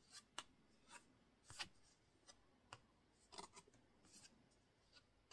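Near silence with about ten faint, irregular soft ticks and rustles of a deck of oracle cards shifting in the hand.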